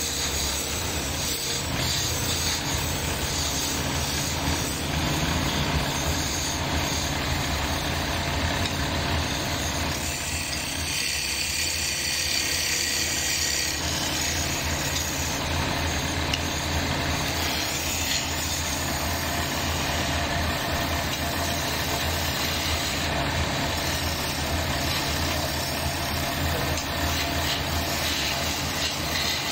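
Wood lathe running with a steady motor hum while a turning tool cuts the spinning wooden blank, giving a continuous rasping, scraping noise. The cutting noise eases for a few seconds about a third of the way in, then picks up again.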